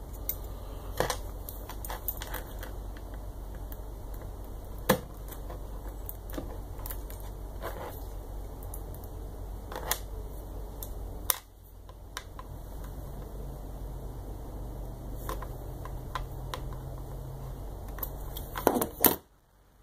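Scattered small clicks and taps of small parts and tools being handled on a workbench, over a steady low hum.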